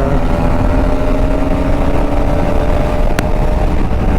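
Bajaj Pulsar RS200's single-cylinder engine pulling under throttle, its pitch climbing slowly and then holding steady, over a heavy low wind rush on the helmet microphone. A sharp click about three seconds in.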